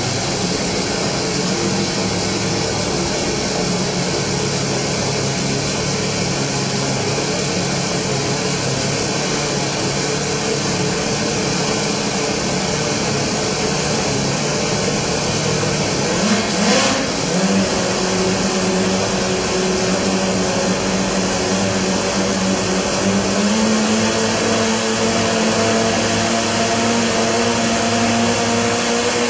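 Turbocharged four-rotor Mazda rotary engine running on an engine dyno, holding a steady speed, with a brief sharp burst a little past halfway. Its pitch then climbs in steps as the revs rise.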